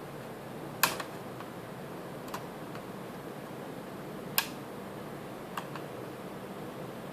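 Sharp clicks and taps of laptop parts being handled during reassembly: a loud click about a second in, another about four and a half seconds in, and two fainter ones between, over a steady hiss.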